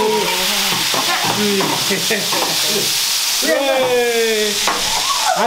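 A hot whole roast chicken on an oven rack sizzling steadily in its dripping fat, just out of the oven. Voices call out briefly, loudest about three and a half seconds in.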